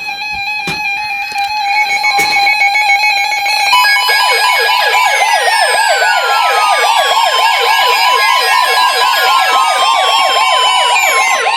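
Emergency alert tones sounding ahead of a severe thunderstorm warning over background music. For the first few seconds there are steady electronic tones. About four seconds in, a siren-like warbling tone starts, rising and falling several times a second, with long falling sweeps above it.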